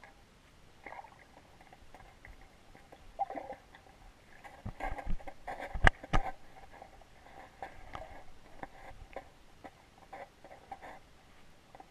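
Irregular clicks, scrapes and knocks picked up through an underwater camera housing as it is jostled, busiest in the middle and loudest in one sharp knock about six seconds in.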